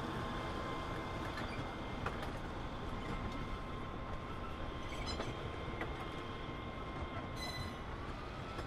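A train of loaded sugar cane bins rolling past on a narrow-gauge cane railway, with a steady rumble and a few scattered clicks from the wheels. A thin steady high tone runs through it and rises slightly near the end.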